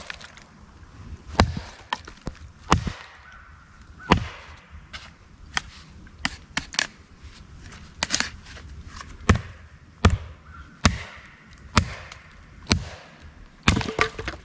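Axe striking a log again and again, a dozen or more sharp blows about a second apart, splitting the wood along an existing crack to make kindling.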